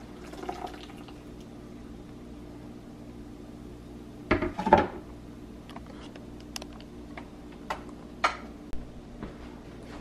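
Blended squash seed milk pouring from a blender jar into a nut milk bag over a steel bowl, tapering off within the first second. About four seconds in comes a loud clatter of knocks, fitting the jar being set down on the counter, followed by a few light clicks and knocks over a steady low hum.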